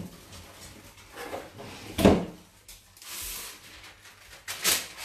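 A kitchen drawer knocks shut about two seconds in, then a sheet of baking paper rustles as it is handled near the end.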